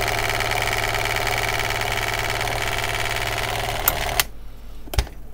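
Plug-in electric nail-polish shaker running with a bottle of paint clamped in it, a steady buzzing hum. It cuts off suddenly with a click of its button about four seconds in, and another click follows about a second later.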